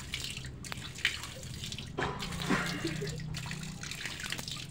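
Pond water splashing and trickling, with a few short splashes.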